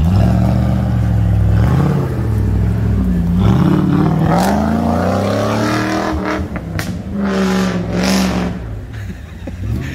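Off-road 4x4 engine revving, its pitch rising and falling several times and climbing in the middle.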